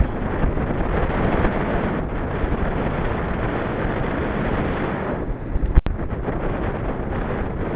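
Wind buffeting the microphone on a moving bicycle: a steady rushing noise, with one sharp knock about six seconds in.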